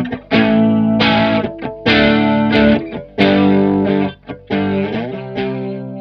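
Squier Starcaster electric guitar on the bridge pickup playing a riff of overdriven chords through a Boss Blues Driver and the Stoy Choir Boy analog bucket-brigade chorus pedal. The chords strike about once a second, and the last one fades out near the end.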